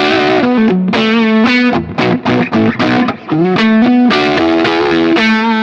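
Electric guitar played through a BSM Starbreaker tube power amp simulator pedal into a Marshall Plexi amp, distorted, with single-note lead phrases, held notes and an upward string bend about three and a half seconds in.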